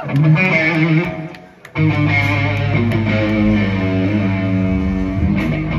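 Amplified electric guitar played live by a rock band, chords at first, then after a brief gap about a second and a half in, a run of single notes over a steady held low note.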